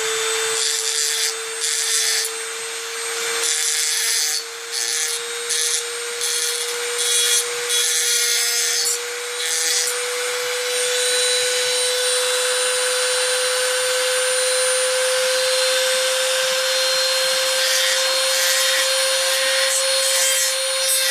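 Small high-speed rotary tool running with a steady whine while its bit grinds a Hot Wheels toy truck's fender to round it out. The grinding comes in short bursts over the first half, then runs more steadily.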